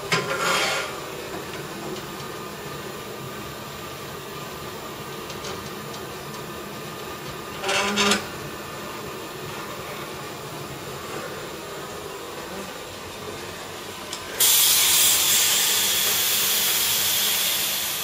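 A hot glass gather turned in a wet block, hissing with steam for about three seconds near the end. Before it there is a steady hum from the running furnace equipment, with two brief knocks near the start and about eight seconds in.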